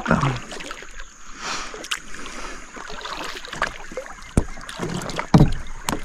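Kayak being paddled: water swishing and splashing from the paddle strokes, with a few sharp knocks, the loudest two near the end.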